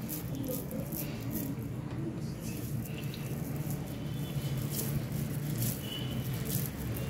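Faint crackling and rustling of hands scooping a moist oats-and-vegetable mixture from a steel bowl and rolling it into balls, with scattered small clicks.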